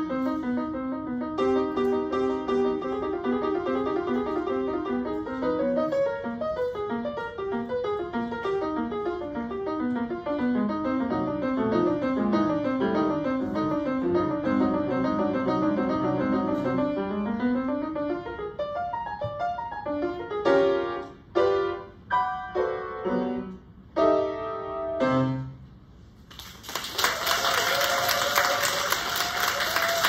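Grand piano playing the closing bars of a piece: a fast, continuous run of notes, then a handful of short, separated chords ending on a final chord. After a brief pause the audience breaks into applause for the last few seconds.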